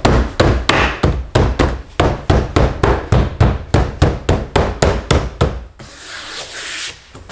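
Hand tapping a carbon trim strip onto a BMW E92 M3 door panel to seat its clips: a quick run of dull knocks, about four a second. Near the end the knocks stop and give way to a brief rubbing as the hand sweeps along the trim.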